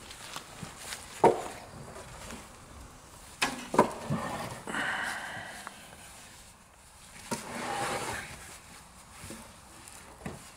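Firewood logs being loaded by hand onto a small trailer's wooden plank deck: a few sharp wooden knocks as logs are dropped on, the loudest twice close together near four seconds in, with softer scraping and shuffling between.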